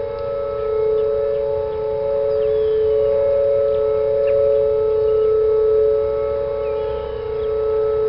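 Whelen WPS-series electronic outdoor warning sirens sounding a steady alert tone for the monthly test: two close, steady pitches heard together, swelling and fading slightly in loudness.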